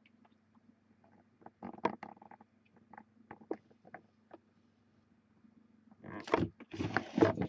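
Handling noise: scattered light clicks and taps, then a loud rustling and crinkling for about a second and a half near the end.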